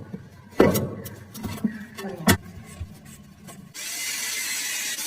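A few sharp knocks and clatters of handled tools, then an electric drill starts about three and a half seconds in and runs steadily, drilling the marked mounting holes for a wash basin cabinet.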